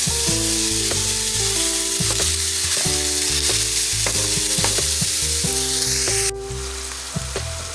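Raw ground beef with diced onion and green bell pepper sizzling in hot olive oil as a silicone spatula breaks up and stirs the meat in the pan. The sizzle drops sharply to a quieter level about six seconds in.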